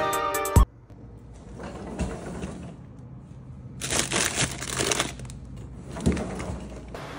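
Background music stops abruptly about half a second in. Then comes the rustling and crinkling of plastic bags of frozen peas in a freezer drawer as an ice cream tub is pushed in among them, loudest about halfway through.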